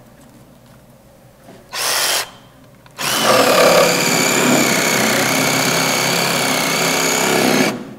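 Cordless power drill triggered briefly about two seconds in, then run at steady speed for nearly five seconds with a constant whine before it stops abruptly; it is a test showing that the drill works with the battery just fitted.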